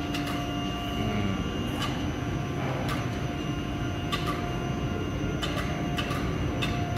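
Overhead bridge crane carrying a magnet lifting beam loaded with steel rebar: a steady mechanical rumble and hum with a faint whine, and sharp clanks at irregular intervals.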